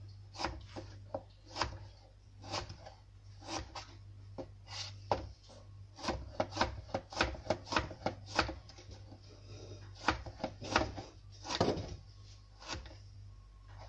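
Kitchen knife slicing through a tomato on a cutting board, each stroke ending in a sharp tap of the blade on the board, in an irregular run of quick cuts.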